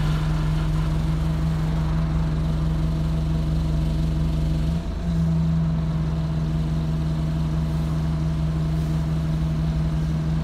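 Single-deck bus's engine running, heard from the passenger saloon as a steady low hum that briefly dips about halfway through.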